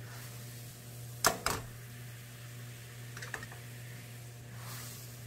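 Frying pan set down on a gas stove's metal grate with two sharp clacks, then a few lighter taps of a wooden spoon on the pan, over the faint bubbling of a soy-sugar glaze reducing in the pan.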